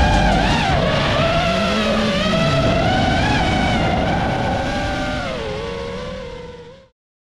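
FPV racing drone's motors and propellers whining, the pitch rising and falling with the throttle, then fading out to silence near the end.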